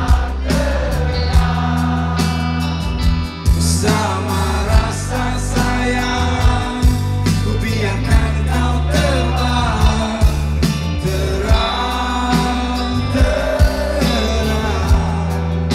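Live rock band playing through a concert PA: electric guitars, bass and drums, loud and continuous.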